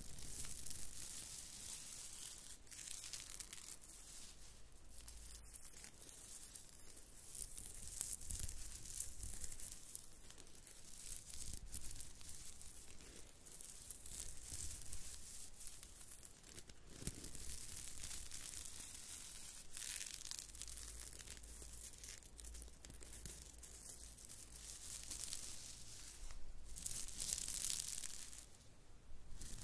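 Fingers brushing over the reversible sequins of a fabric glove, the sequins flipping with a dry, scratchy rustle that comes and goes in several bursts.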